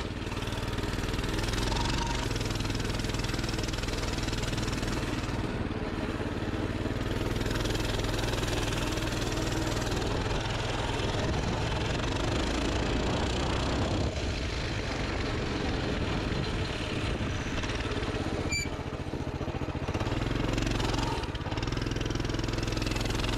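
Pit bike engine running as the bike is ridden through deep snow. Its pitch shifts up and down several times as the throttle changes.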